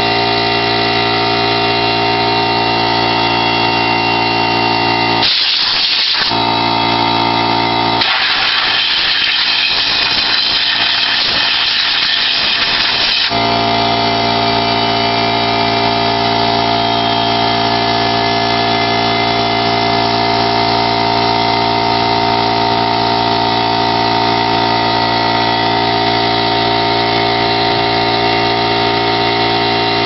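Portable air compressor running steadily. A blow gun gives a short hissing blast of compressed air about five seconds in, then a longer blast of about five seconds, blowing dust out of vacuum cleaner parts.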